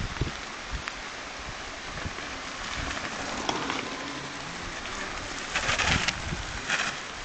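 A mountain bike passes close by on a dirt forest trail, its tyres giving a rising hiss over the ground for about a second near the end, with a shorter hiss just after. A steady outdoor rustle lies underneath.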